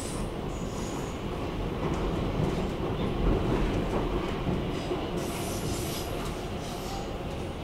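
Stockholm metro (tunnelbana) train running on the track, heard from inside the passenger car: a steady rumble of wheels and running gear that swells in the middle, with a high squeal from about five seconds in.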